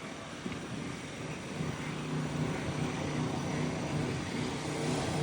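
A motor running with a steady low hum that grows louder from about a second and a half in, over a steady hiss of wind and outdoor noise.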